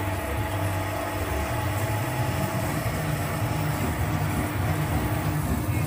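Shock absorber test stand running, stroking a front Monroe CVSA adaptive damper from a BMW X3 G01 up and down with a steady, unevenly pulsing low hum. The damper under test has leaked its oil and gives very little resistance.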